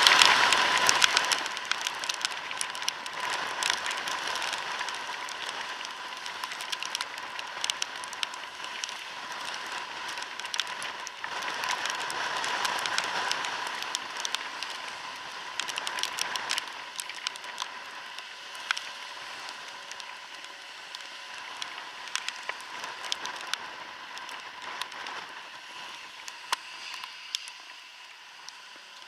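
Steady hiss of rain and wet road while riding a scooter in the rain, with many sharp ticks of raindrops striking close to the microphone and a thin steady whine underneath. Loudest in the first second or two, then slowly fading.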